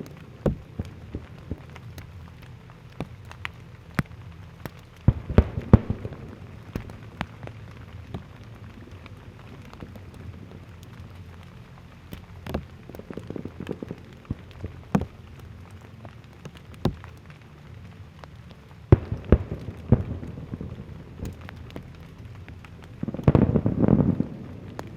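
Aerial fireworks shells bursting, with scattered sharp crackles throughout and heavier clusters of booms about five seconds in, around nineteen seconds, and loudest with a rumbling volley near the end.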